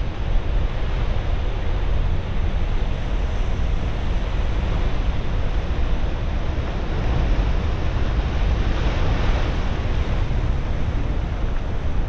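Big ocean surf breaking, a steady rush of waves with wind buffeting the microphone, brightening a little about nine seconds in.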